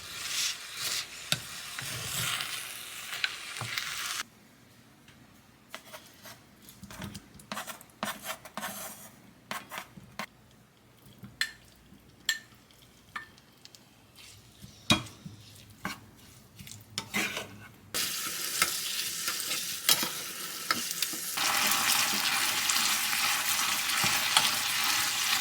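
Food frying in a pan with a steady sizzle, broken by a long, quieter stretch of utensil clicks and taps against cookware. The sizzling comes back about three-quarters of the way through and grows louder near the end.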